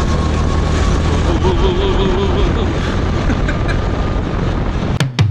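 Go-kart engine running steadily at speed. A few sharp clicks about five seconds in as the sound breaks off.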